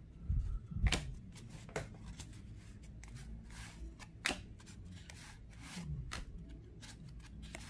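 Cardboard baseball cards from 1984 Fleer packs being flipped through by hand, each card slid off the front of the stack and tucked behind. Short sharp card snaps come about a second in, near two seconds and a little past four seconds, with soft handling thuds near the start.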